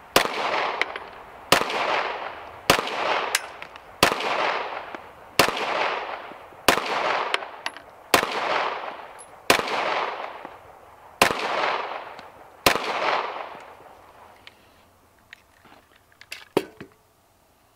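Glock 19 9mm pistol fired ten times in slow, deliberate succession, a shot about every one and a half seconds, each crack trailing off in an echo. Near the end, a few light metallic clicks of the pistol being handled.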